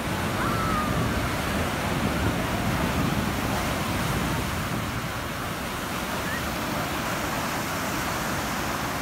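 Ocean surf breaking and washing up the shore in a steady rush.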